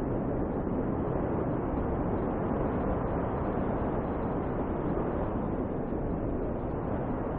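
Snowstorm wind blowing steadily: an even, low rushing noise with no breaks or sudden sounds.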